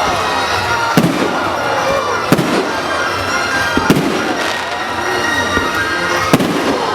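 Fireworks display: four sharp bangs of bursting shells, spaced a second or more apart, over a continuous din of smaller bursts.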